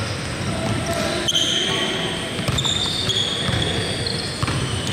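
Basketball game action: sneakers squeak on the court floor in several short, high-pitched chirps over the thud of the ball bouncing and players' footsteps.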